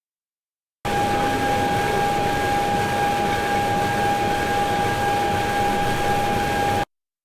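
Industrial machinery running at a steady pace, a constant whine over a noisy hum, starting about a second in and cutting off abruptly near the end.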